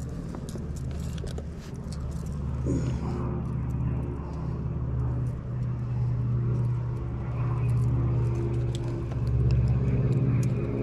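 A motor running steadily with a low drone that swells louder near the end, over scattered small clicks of fishing pliers working hooks out of a fish.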